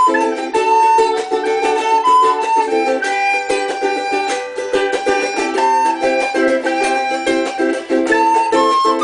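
Music on a plucked string instrument: a quick, even rhythm of repeated plucked chords, with a melody line running above it.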